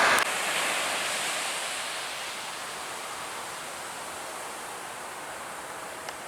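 Steady rushing wash of surf on a beach, starting right after louder aircraft noise cuts off abruptly and easing down slightly over the first couple of seconds.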